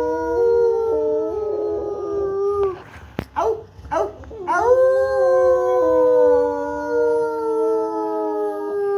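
Rottweiler howling: a long howl that slowly falls in pitch and dies away, a few short yips and breaths, then a second long, slowly falling howl, each carrying two pitches at once.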